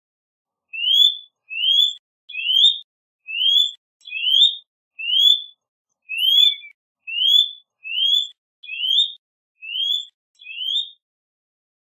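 A bird calling a steady series of twelve short, clear whistled notes. Each note rises quickly in pitch, and they repeat a little under once a second.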